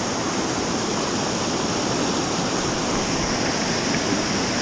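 Fast-flowing river pouring over a weir: a steady rush of white water crashing into the channel below.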